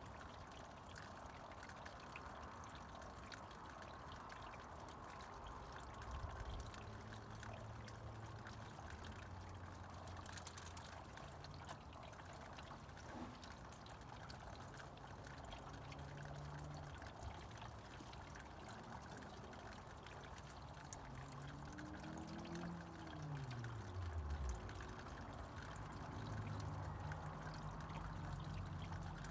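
Snowmelt water trickling and pouring steadily. A low hum comes and goes underneath, and about two-thirds through a low tone slides down in pitch.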